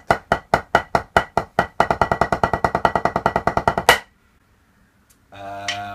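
Drumsticks on a drum practice pad playing 16th-note quintuplets: single strokes at about five a second, then about two seconds in the strokes double up into a diddled roll, stopping on a last accent about four seconds in.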